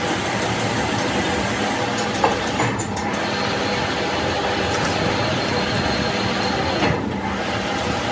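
Metal lathe running, turning a steel transmission shaft while the threading tool cuts on it: a steady mechanical noise. A short sharp click about two seconds in.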